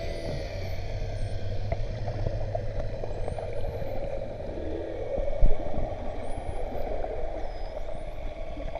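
Underwater sound: a steady low hum and water noise, with several faint, high, rising whistles from a pod of spinner dolphins. A single louder knock comes about halfway through.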